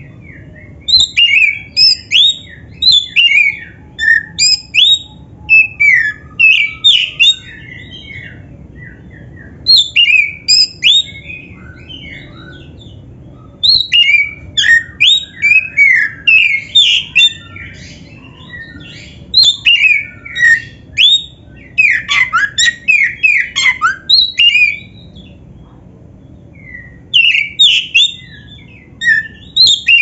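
Oriental magpie-robin (kacer, the black-breasted form) singing: bouts of rapid, varied whistled notes and trills that swoop up and down, broken by short pauses of one to two seconds.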